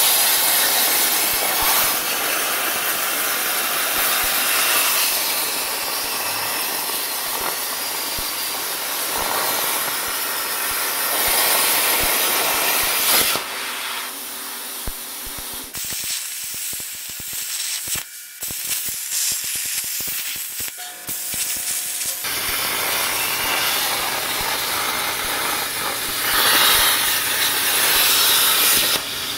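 Plasma cutter torch on an ArcDroid portable CNC cutting spiral cut-outs in a steel pulley: a loud, steady hiss of the arc and its air. About halfway through, the hiss stops for several seconds of quieter clicking between cuts, then starts again.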